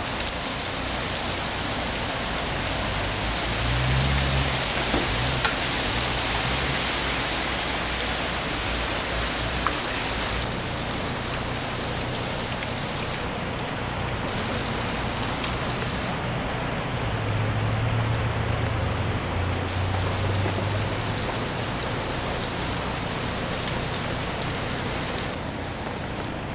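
Melting ice and meltwater dripping and pattering off ice-coated trees, sounding like steady rain, with small ticks of falling ice pieces. A distant chainsaw drones low in the background, louder a few seconds in and again past the middle.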